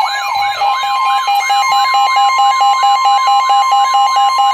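NOAA Weather Radio's 1050 Hz warning alarm tone, a single steady loud tone that starts under a second in, marking the start of a warning broadcast. Layered with it is an electronic alarm tone that sweeps up and down about three times a second, along with a higher stepping beep pattern.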